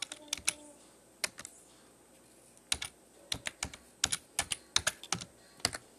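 Typing on a keyboard: irregular key clicks in short quick runs with brief pauses between them.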